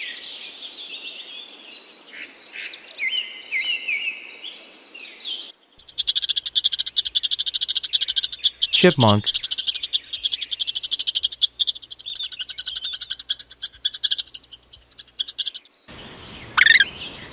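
Birds twitter for the first few seconds. Then a small squirrel gives a long, rapid run of high-pitched chirps, many a second, for about ten seconds.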